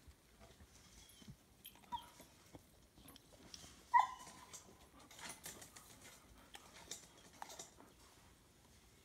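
Dogs tussling over a stick: a short yip about 2 s in and a louder yip or whine about 4 s in, among faint scuffling and small clicks.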